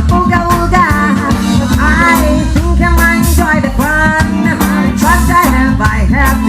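Live reggae band playing, with drum kit, bass and guitar, and a woman singing over it.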